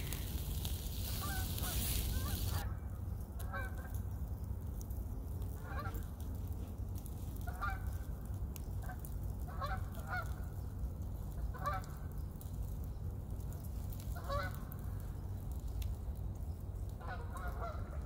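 Geese honking faintly and repeatedly, a short call every second or two, over a steady low rumble.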